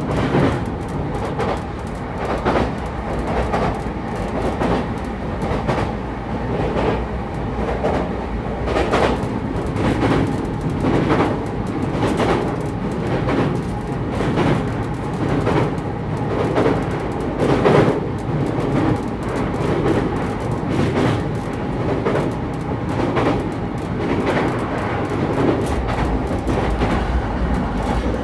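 JR East E233-series electric train heard from inside motor car MoHa E233-1419 while running between stations. A steady rumble runs throughout, with the wheels clicking over rail joints again and again.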